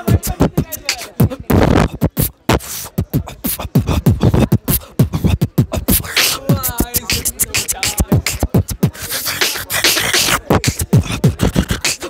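A man beatboxing close to a clip-on microphone: a fast, dense run of vocal kick, snare and hi-hat sounds, with a brief stretch of wavering pitched voice about six seconds in.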